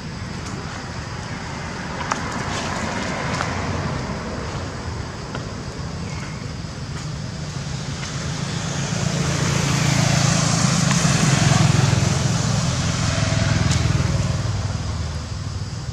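A road vehicle going past: a rumbling hiss that builds over several seconds in the second half and then fades.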